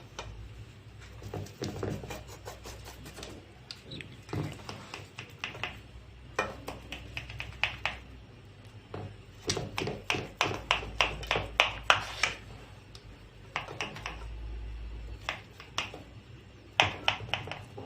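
A knife tapping and scraping against a baking tray while slicing a baked potato-and-egg eggah into squares, in short runs of quick clicks with pauses between.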